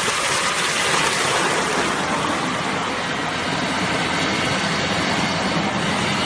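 Coconut meat grinding machine running: a steady, even mechanical noise.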